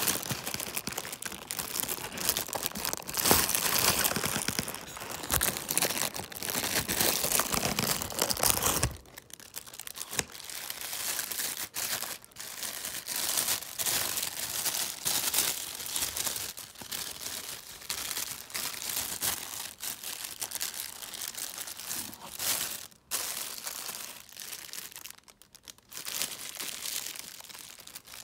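Thin clear plastic packaging crinkling and rustling as it is handled and pulled around a camera. It is dense and continuous for about the first nine seconds, then comes in shorter, quieter bursts.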